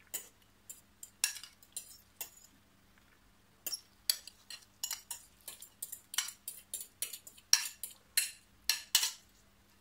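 Metal spoon scraping and clinking against a dish in short, sharp strokes, pushing diced vegetables off into a bowl of quinoa. The strokes pause briefly about three seconds in, then come faster, a couple a second.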